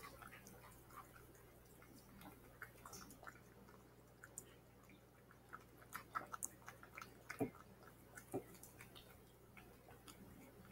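Domestic cat eating wet food from a bowl: faint, wet chewing clicks that come thicker and louder about six to eight and a half seconds in.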